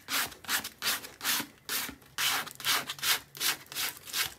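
A plastic credit card scraping dried kosher salt crystals off watercolour paper in quick repeated strokes, about two or three a second.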